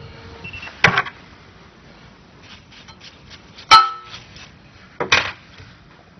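Sharp metal clunks and clicks from handling the SEC-E9 key cutting machine once the cutting has stopped. A faint steady hum cuts out just after the start, then come three loud knocks: about a second in, near the middle (ringing briefly) and about five seconds in.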